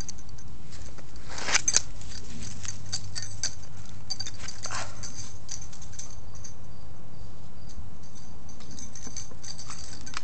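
Dachshund tussling with a plastic frisbee: irregular clicks and scrapes, busiest about one and a half to two seconds in and again near five seconds.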